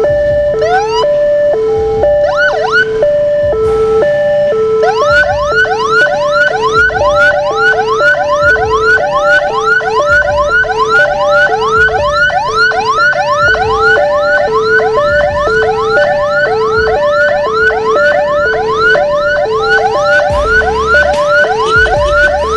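Two sirens at once: a steady two-tone hi-lo siren switching back and forth between two pitches, and from about five seconds in a rapid 'hammer' siren repeating quick rising chirps about twice a second.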